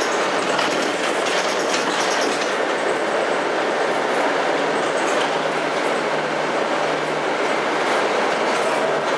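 Steady engine and road noise heard from inside a moving bus, with a low engine drone coming up about halfway through.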